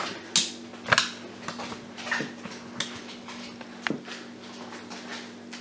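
About five separate light knocks and clinks of things being handled in a kitchen, over a steady low hum.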